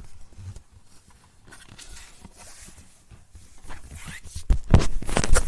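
Fidget toys being handled: light rustling and scratching with scattered soft clicks, then a quick run of sharper knocks and clicks near the end.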